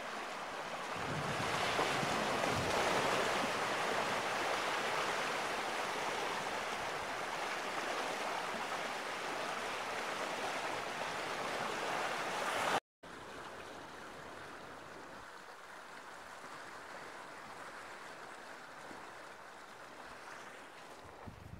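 Steady rush of river water flowing past a bridge pier, carrying broken ice floes. It swells about a second in, breaks off for an instant about 13 seconds in, and comes back quieter.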